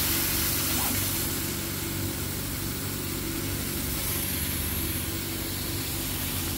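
A CO2 laser cutting machine running during a cutting pass: a steady hum made of several low tones, with a constant hiss over it and no pauses.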